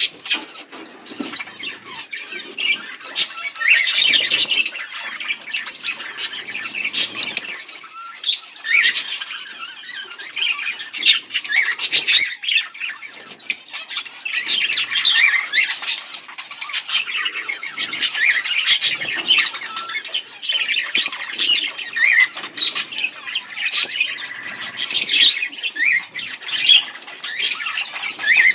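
A pair of budgerigars chirping and warbling continuously, a busy chatter of quick, sharp notes.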